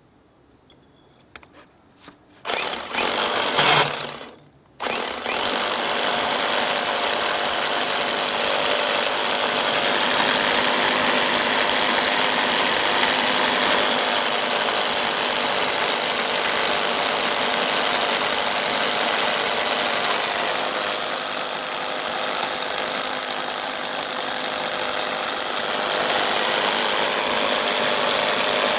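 Electric rotary hammer drill with a core bit boring into a wall. A short first burst about two and a half seconds in, a brief stop, then it runs steadily under load from about five seconds on.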